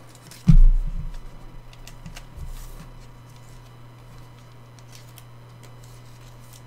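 A thump about half a second in, then faint clicks and rustling of a trading card being slid into a plastic penny sleeve and card saver, over a steady low hum.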